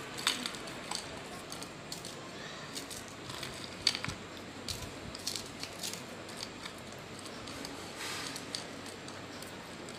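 Oreo biscuits being crushed by hand in a bowl: faint, irregular crunching and snapping, with the sharpest cracks about a third of a second in and near four seconds.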